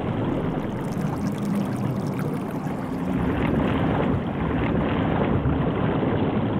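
Sea water churning and bubbling as a person plunges beneath the surface, heard as a steady rushing noise.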